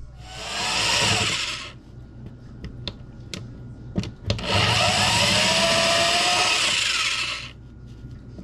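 Electric drill spinning a cutting bit into a wooden lure body, shaving the wood, in two runs: a short one near the start and a longer one of about three seconds in the second half. A few sharp clicks come between the runs.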